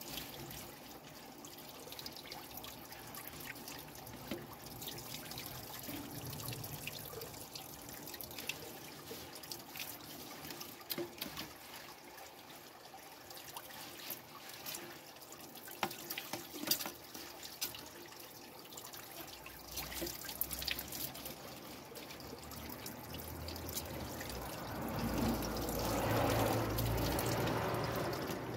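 Water trickling from a garden tap onto wet garlic mustard leaves in a plastic basket over a sink, with small splashes and crackles as hands rinse and turn the leaves. The water sound grows louder near the end.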